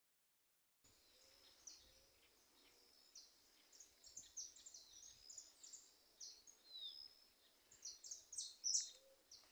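Wild saffron finch (jilguero) singing from the treetops: a long run of short, high chirps with a few sweeping notes, faint and distant, starting about a second in.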